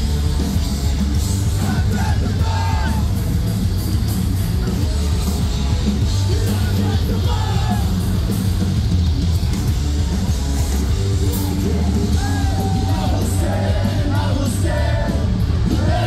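Metalcore band playing live at full volume: distorted electric guitars, bass and pounding drums, with a vocalist singing and yelling over them.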